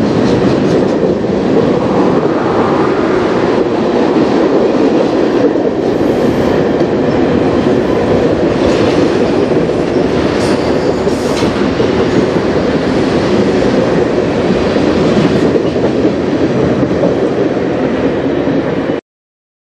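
Freight cars of a mixed freight train (autoracks, then loaded flatcars) rolling past on the rails: a steady rumble of wheels on track with clickety-clack. A couple of brief high wheel squeals come about halfway through. The sound cuts off suddenly near the end.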